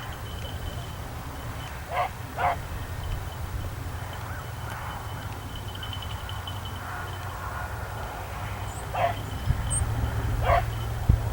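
Hunting beagles giving short barks: two about two seconds in and two more near the end, over a steady low rumble.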